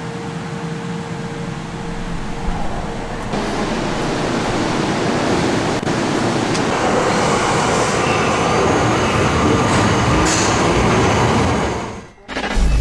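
Underground metro train at a station platform: steady train noise that grows louder over the first few seconds, then cuts off abruptly near the end.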